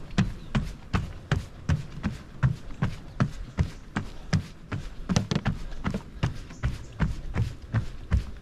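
Running footsteps on a boardwalk, a steady stride of about two and a half footfalls a second.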